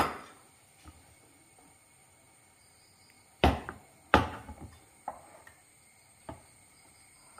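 Sharp clacks of a steel ladle and a non-stick pan knocking together while batter is spread: one at the start, the two loudest about three and a half and four seconds in, then a few fainter taps.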